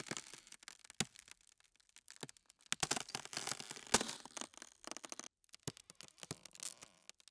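Ice-cracking sound effect: irregular crackles and sharp snaps, the sharpest about four seconds in, with a brief pause a little past five seconds.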